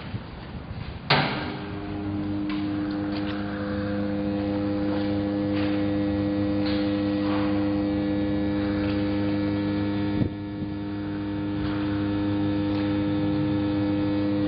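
Stick welding arc struck with a sharp crack about a second in, then a steady electrical buzz with scattered faint crackles as the weld runs. The buzz breaks briefly near ten seconds and picks up again.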